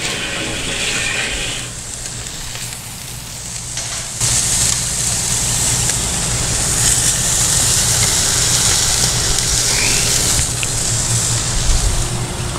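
Steaks sizzling on a charcoal kettle grill over hot coals, a steady hiss that grows louder about four seconds in, with a low fluttering rumble underneath.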